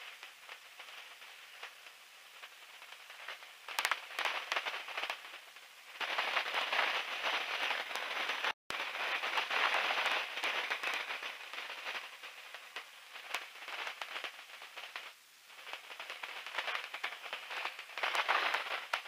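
Crackling, hissing noise on the biplane's headset intercom feed, thin and without any low rumble. It swells and fades in waves and drops out completely for a moment about eight and a half seconds in.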